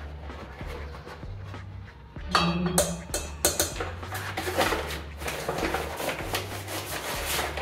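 Background music with a steady low beat; from about two seconds in, louder crinkling and rustling as a flour bag is handled and flour is scooped from it.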